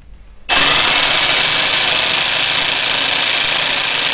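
Einhell 18 V cordless jigsaw switched on about half a second in and running steadily with no load, its blade stroking in free air on the maximum pendulum setting.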